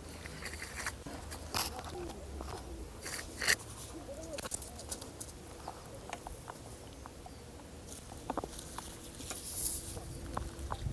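Close handling noises: scattered clicks, taps and rustles near the microphone, over a low steady rumble outdoors, with a few faint short calls.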